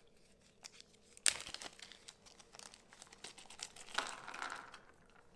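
Small plastic parts bag crinkling as it is opened by hand, with a sharp click about a second in and scattered small ticks, and a brief burst of crinkling near the end.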